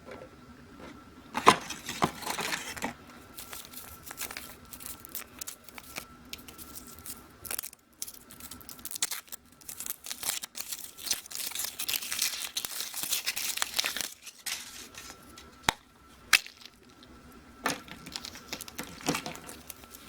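Foil wrapper of a chocolate surprise egg being torn and crinkled off by hand, in irregular bursts of crackling with a few sharp clicks and snaps; the densest crinkling comes about two-thirds of the way through.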